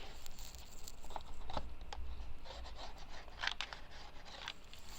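Cardboard being handled and worked by hand: scattered scratches, rubs and light clicks.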